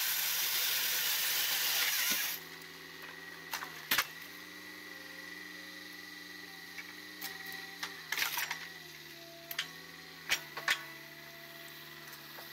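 A loud hiss that cuts off suddenly about two seconds in, then a steady machine hum that shifts slightly in pitch, broken by several sharp clicks and knocks.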